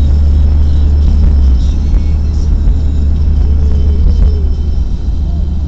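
Car driving on the road, heard from inside the cabin: a steady low engine and tyre rumble.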